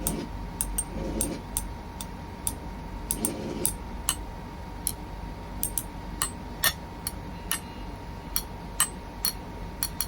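Irregular sharp clicks, a few a second, over a steady low hum and a faint steady high tone.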